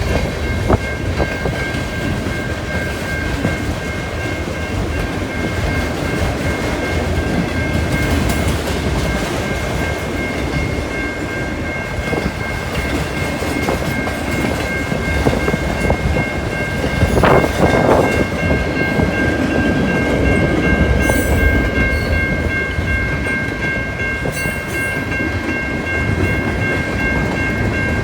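CN manifest freight train rolling past, its cars rumbling and clattering over the rail joints. Steady high-pitched ringing tones sound throughout. About seventeen seconds in there is a brief louder clattering swell.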